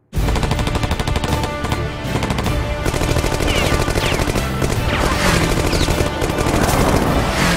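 Loud action-soundtrack mix of rapid machine-gun fire and music, starting abruptly out of silence.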